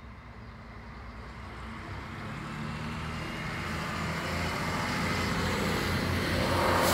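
Class 650 Stadler RegioShuttle diesel railcar approaching, its engine hum growing steadily louder, with a broad rushing noise of wheels on rails swelling near the end as it reaches the crossing.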